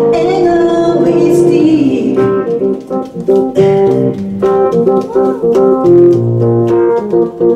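Electronic keyboard with an organ tone playing an instrumental break: short repeated chords with brief gaps and a few low bass notes. In the first couple of seconds a woman's sung note trails off underneath.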